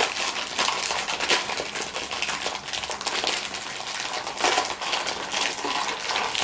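Thin clear plastic bag crinkling and rustling as hands work it open, a continuous run of crackles.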